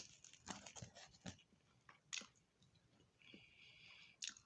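Faint close-up chewing of food, with a few small wet mouth clicks and smacks.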